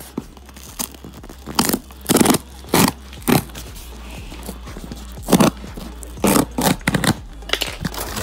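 A pointed hand tool scraping and slitting through tape on a cardboard shipping box, in short strokes: about ten in all, in two runs with a pause around four seconds in.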